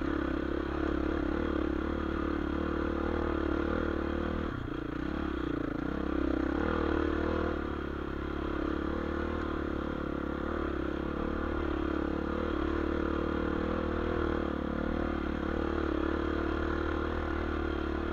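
Dirt bike engine running under steady throttle while climbing a rocky single-track trail, with the bike rattling over stones. The engine eases off briefly about eight seconds in, then picks up again.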